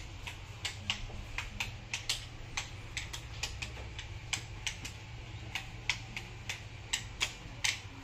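Irregular sharp light clicks, roughly three a second, over a steady low hum.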